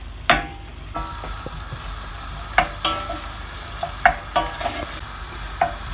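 Wooden spoon stirring diced raw mango, sugar and spices in a stainless steel pan, the mixture sizzling steadily as it cooks. A sharp knock comes just after the start, and the spoon clacks against the pan about five times.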